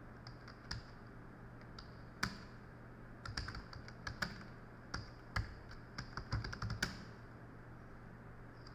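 Typing on a computer keyboard: irregular key clicks with a few louder strokes, stopping about seven seconds in, over a steady low hum.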